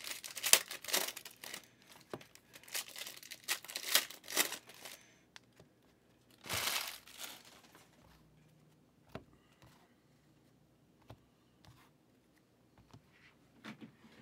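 Foil wrappers of trading-card packs crinkling and tearing open for about five seconds, another short burst of crinkling about six and a half seconds in, then only scattered faint clicks.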